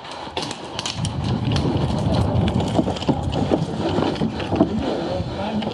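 Footsteps of a person running, then stepping up wooden stairs: a quick, uneven run of knocks and thuds over the rumble of movement, with short sharp clicks scattered through.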